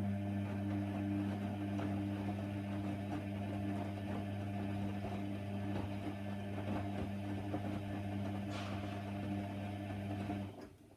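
Hoover Nextra HNWL 7146 washer dryer humming steadily, then cutting off abruptly about ten and a half seconds in.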